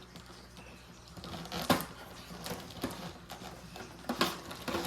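Hands rummaging through and pulling items out of a collector box's packaging: irregular light knocks and clicks with rustling, starting about a second and a half in.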